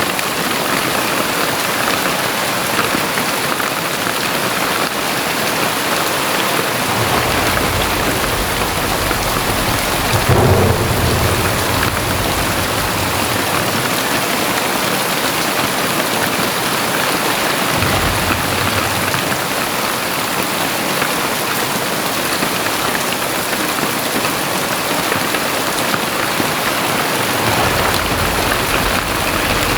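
Heavy rain falling steadily, with low thunder rumbling on and off and a louder peak about ten seconds in.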